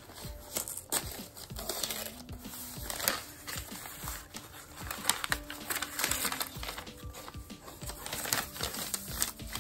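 Paper gift wrapping crinkling and rustling in irregular bursts as it is peeled and unfolded from a small cardboard box, with quiet background music.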